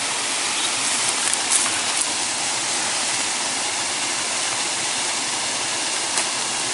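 Steady rushing of a river and a nearby waterfall, with a few light clicks from the cast net and catch being handled about one to two seconds in and again near the end.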